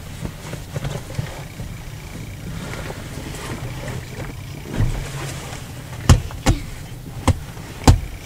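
Car interior noise: a steady low rumble of engine and road, with a few sharp taps in the last couple of seconds.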